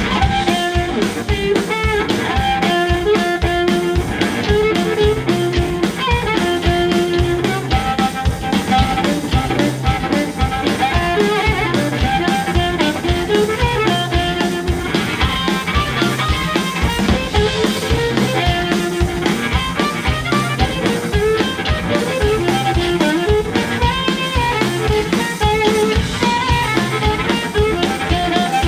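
Live electric blues band: a harmonica cupped to a microphone plays riffs over electric guitar and a drum kit keeping a steady beat, with a low line repeating under them.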